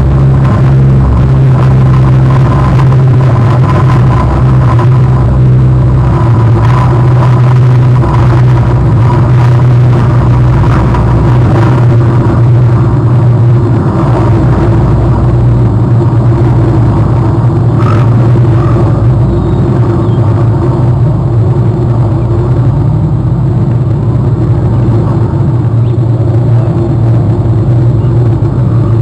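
Loud, steady low rumble with no clear events, easing slightly in the last third.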